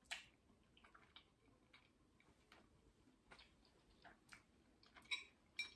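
Near silence, with faint scattered clicks from chewing a mouthful of pasta and two sharper clicks near the end.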